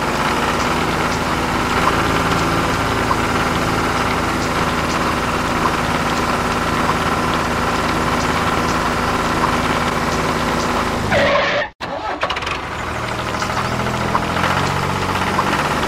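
Tractor engine sound running steadily at a constant pitch, which goes with the toy tractor's wheels spinning in the sand. It cuts out abruptly for a moment about twelve seconds in, then carries on.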